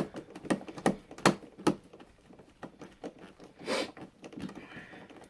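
Light clicks and taps of small plastic and metal electrical parts being handled: about five sharp clicks in the first two seconds, then softer scattered ticks.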